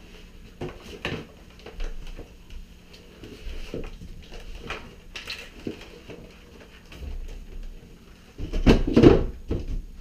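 Shoes being taken off in a small entryway: scattered scuffs, rustles and light knocks, then a louder clattering thump about eight and a half seconds in.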